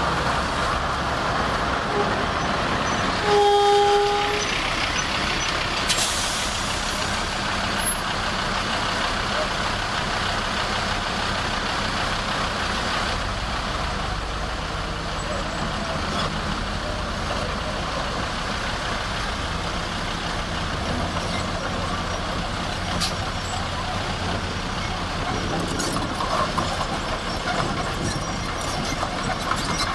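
Heavy diesel earth-moving machinery engine running steadily under load. A short horn toot sounds about three and a half seconds in, lasting under a second.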